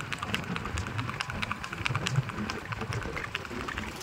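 Kathiyawadi mare's hooves clip-clopping on an asphalt road as she is ridden in the revaal chaal gait: a quick, uneven run of sharp clicks.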